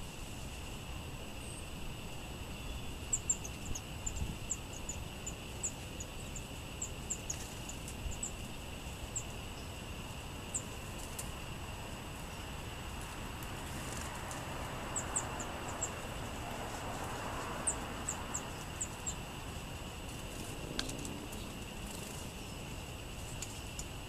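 Small songbirds giving runs of short, very high, thin call notes several times, with a few faint clicks, over a steady background hiss.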